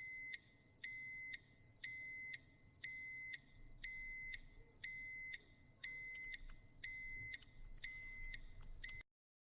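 High-pitched electronic alarm: a constant shrill tone with a lower tone beeping on and off about once a second. It cuts off suddenly near the end.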